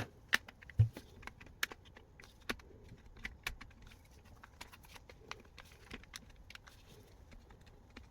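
Scattered light clicks and taps of small hard parts being handled, with a louder low knock just under a second in.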